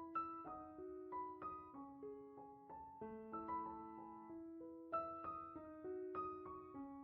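Soft background piano music: a gentle melody of single held notes.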